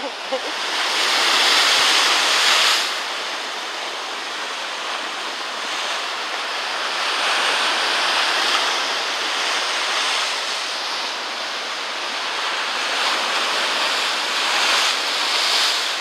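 Rough sea surf breaking and foaming over rocks at the shoreline, a continuous wash that swells several times, loudest about one to three seconds in.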